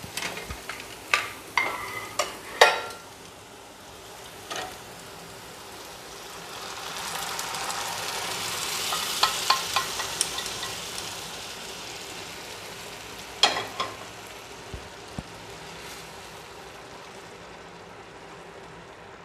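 Spatula clicking and scraping against a nonstick frying pan of sizzling onion-tomato masala. Cooked lentils are then poured from a pot into the hot pan, bringing a swelling sizzle and hiss about 7 to 12 seconds in. A few more knocks of the pot and spatula follow as it settles to a soft, steady sizzle.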